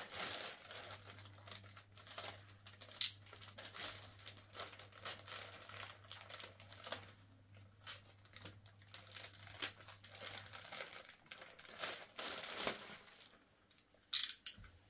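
Clear plastic bag of Lego track pieces crinkling and rustling as it is handled and opened, in irregular crackles with a sharper one about three seconds in and a louder one near the end. A faint low hum runs underneath until about two-thirds through.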